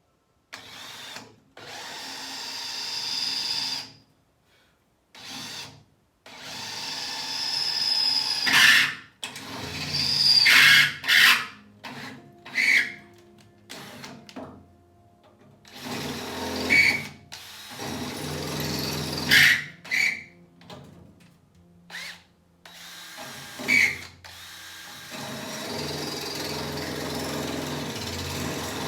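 Power drill boring holes, running in short stop-start bursts with high squeals as the bit bites.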